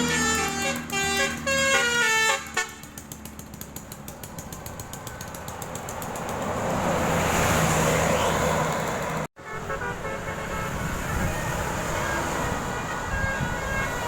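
Telolet basuri bus horn, a multi-note musical horn, playing a quick tune of stepped notes for about two and a half seconds. A bus then passes with engine and rushing noise that swells midway. After a sudden break, another horn tune plays more faintly.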